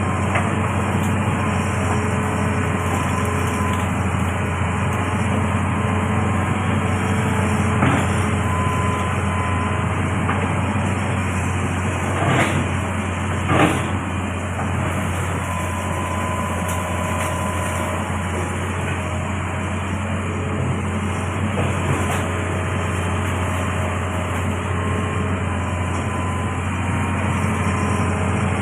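Amphibious excavator's diesel engine running steadily with a deep hum, with a few clanks from the machine, two of them close together about halfway through.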